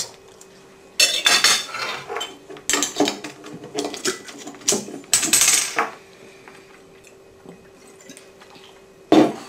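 Cutlery clinking against a plate, then a bottle opener prying the crown cap off a glass beer bottle, with a short hiss as the cap comes off. Quiet follows, then a sharp knock near the end.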